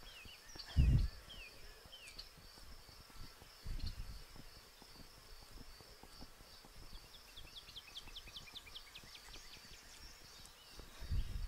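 Woodland ambience: a steady, high, evenly pulsing chirr, a few short falling bird chirps early on, and a bird's quick trill of falling notes about 7 to 9 seconds in. Three brief low thumps come about 1, 4 and 11 seconds in, the first being the loudest sound.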